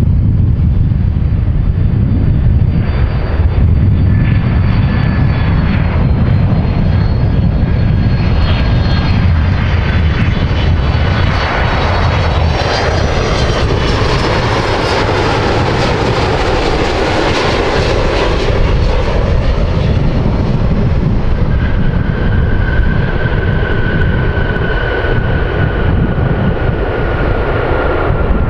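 Jet airliner's engines passing close by: a steady low rumble with a roar that builds to a peak midway and then eases off. Over it run high engine whines, one of them slowly falling in pitch near the end.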